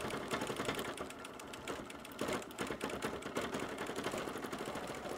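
Bernina Q20 sit-down longarm quilting machine stitching, its needle running in rapid, even strokes while the quilt is moved by hand for free-motion quilting.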